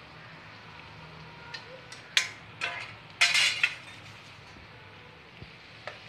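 A steel ladle clinking and scraping against a metal pan of poha: a run of sharp clinks in the middle, the loudest cluster about three seconds in, and one more near the end.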